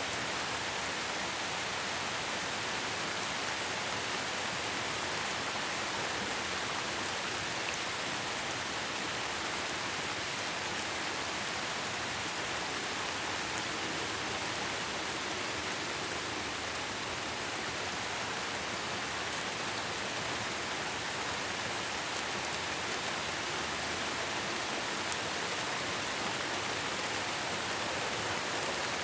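Steady rain falling, a dense even hiss of drops on a surface.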